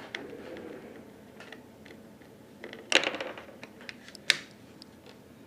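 Small plastic clicks and rattles from a Syma X8C quadcopter's body parts and circuit board being handled and pulled apart, with a louder scraping rattle about three seconds in and a single sharp click a second later.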